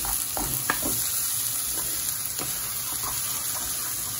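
Chopped onions, ginger and garlic sizzling in a nonstick frying pan while a wooden spatula stirs them, with a steady hiss and scattered light scrapes and taps of the spatula against the pan.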